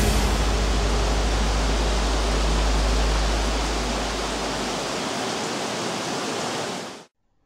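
Steady hiss of heavy rain pouring down in a storm, with a low rumble underneath that fades out about five seconds in. The rain sound then fades and cuts off shortly before the end.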